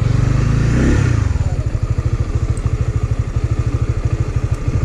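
Honda CB150X's single-cylinder engine running at low revs, settling after about a second and a half into an even, rapid beat of firing pulses.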